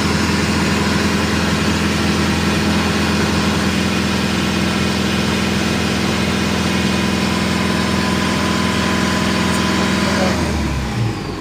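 Rescue boat's Yanmar diesel engine idling steadily, then shut down about ten seconds in and running down to a stop.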